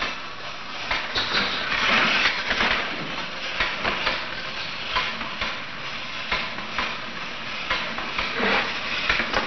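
Mechanical fear apparatus built to frighten a baby rhesus monkey with loud sound and moving parts, running with a steady hissing rattle broken by irregular clicks.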